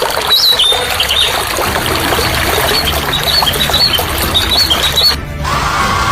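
Loud rushing water with a run of short, high squeaking chirps over it; the sound cuts off sharply about five seconds in.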